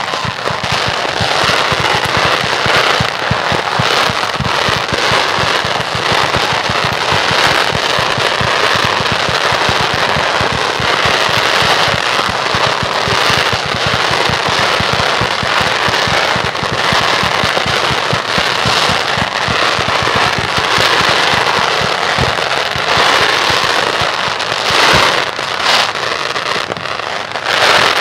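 Fireworks display barrage: a dense, unbroken run of shell bursts and crackling, with a few louder bangs near the end.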